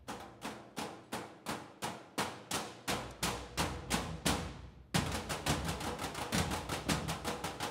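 Percussion ensemble beating galvanized metal trash cans with sticks in a steady beat, about three strikes a second. About five seconds in, more players come in and the rhythm turns denser and louder.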